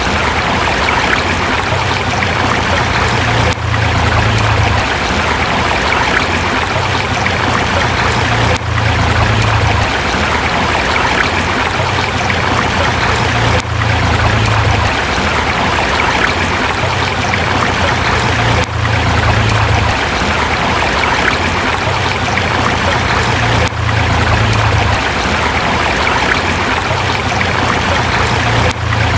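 A forest river rushing steadily over rocks, a loud even wash of flowing water with a brief dip about every five seconds.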